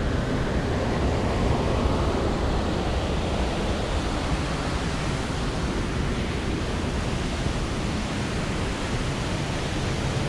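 River water rushing through rapids in a canyon: a loud, steady rush of water noise.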